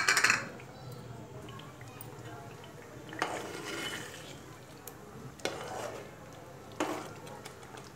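A steel spoon stirring gravy in a metal cooking pot, with a loud clatter right at the start and a few scattered knocks of the spoon against the pot.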